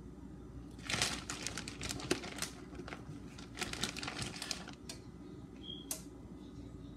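Crackly rustling and crinkling in two bursts of about a second and a half each, as of shredded cheese and its plastic packaging being handled, followed by two single clicks.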